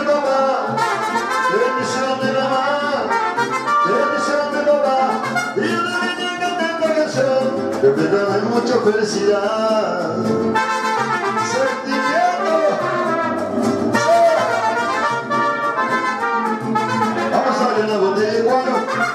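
Live mariachi band playing, with trumpets carrying the melody.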